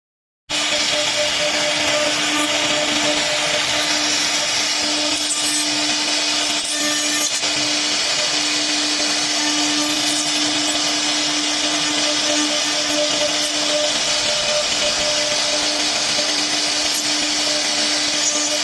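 UBO 3-axis CNC router spindle running steadily while cutting wood, a constant hum under a loud hiss. It comes in after a brief gap of silence at the very start.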